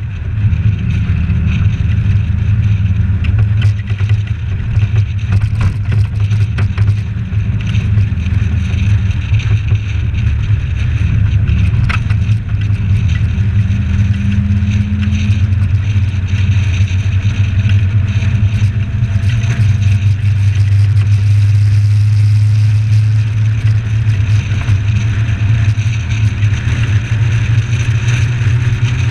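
Suzuki Samurai 4x4 driving at road speed: a steady low engine drone with tyre and wind noise, muffled through the camera's sealed case.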